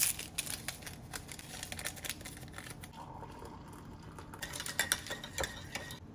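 A small paper packet torn open and crinkled, then hot water poured from an electric kettle into a ceramic mug, and a metal spoon clinking against the mug while stirring near the end.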